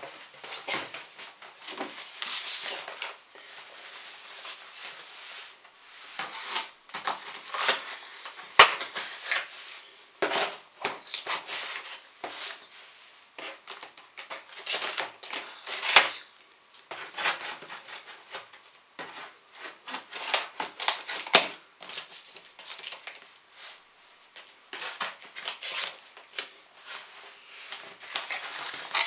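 Cardboard parcel being opened: the box is handled and its packing tape pulled and cut with scissors, giving irregular bursts of scraping and rustling with a couple of sharp clicks.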